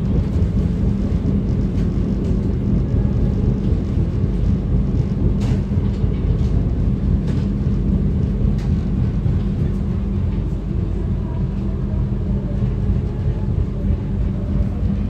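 Steady low rumble inside a passenger train carriage rolling along the track, with a constant low hum and a few faint clicks.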